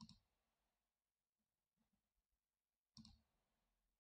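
Two faint computer mouse clicks about three seconds apart, over near silence.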